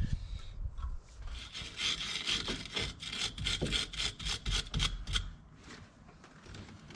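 Rhythmic scraping strokes, about four or five a second, starting about a second in and stopping after about four seconds.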